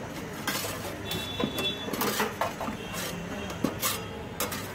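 Metal spatula scraping and knocking against an oven's wire grill rack as sandwiches are slid onto it: a string of sharp metallic clatters and scrapes, a few with a brief ring.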